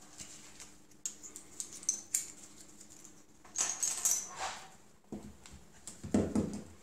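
Handling noise on a wooden tabletop: paper towels rustling, then plastic prying picks clicking against each other as they are gathered up. Near the end come a few duller knocks, the loudest sounds here.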